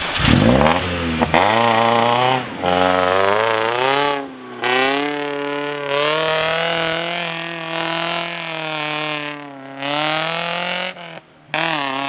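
Off-road car's engine revving hard at full throttle through a mud pit, its pitch climbing and falling again and again with a sharp rev at the start and a few brief drops, over the splash of mud and water.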